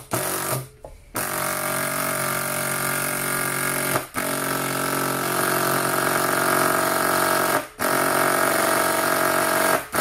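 Makita 12V cordless impact driver hammering a screw into a block of very hard wood. A short burst of impacts comes first, then long runs of fast, steady hammering, broken by brief pauses about four and seven and a half seconds in.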